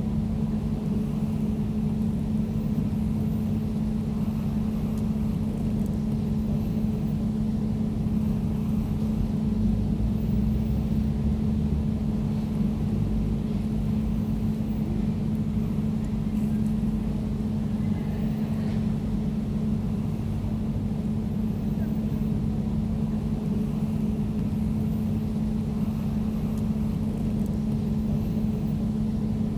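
Air conditioner running with a steady low hum and a fainter higher tone above it, over a dense low rumble that never changes.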